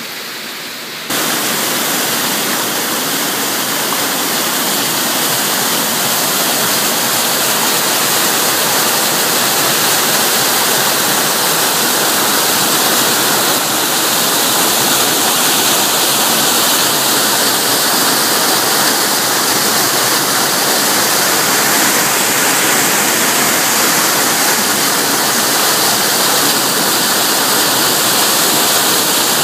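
Waterfall pouring into a pool: a steady, loud rush of falling water, the creek running well. It gets suddenly louder about a second in.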